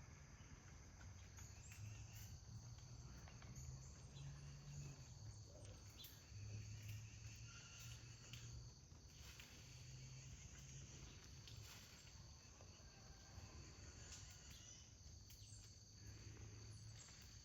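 Near silence: a faint, steady high-pitched chorus of crickets over a low hum.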